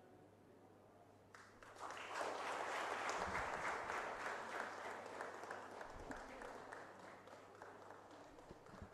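Audience applauding, starting about a second and a half in, building quickly and then slowly dying away.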